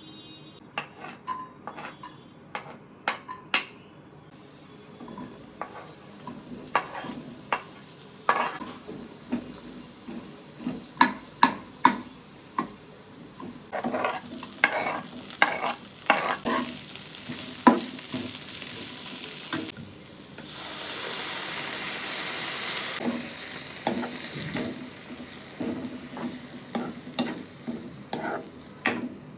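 Cooking sounds: a utensil knocking and scraping irregularly against a pan while food is stirred, with a hiss about two seconds long near two-thirds of the way through.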